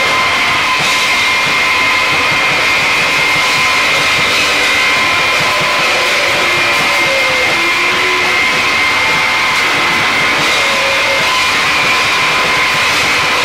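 Japanese harsh noise music played live: a loud, unbroken wall of distorted noise with steady high whining tones running through it, and a few short wavering squeals about halfway through.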